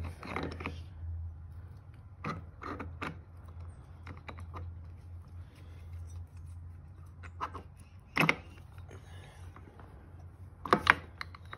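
Metal engine parts clicking and knocking as a Honda CRF110's gear assembly is wiggled back onto its shafts, so that its gears line up. The clicks are scattered, the sharpest about eight and eleven seconds in, over a steady low hum.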